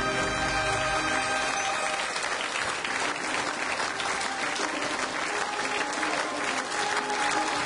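Large audience applauding steadily, with theme music that fades down about two seconds in and stays faint beneath the clapping.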